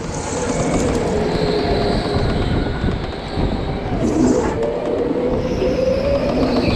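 Go-kart running at speed around an indoor track, heard from the driver's seat: a steady running noise with a motor whine that dips in pitch about four seconds in and then climbs again as the kart speeds back up.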